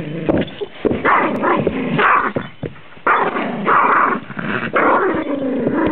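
Small chihuahua-mix dog growling in play with a plush toy in its mouth, in several bouts.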